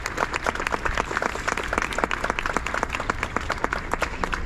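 Audience applauding, with many separate hand claps.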